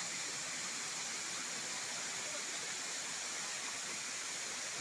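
Steady rushing of a waterfall, an even hiss with no breaks.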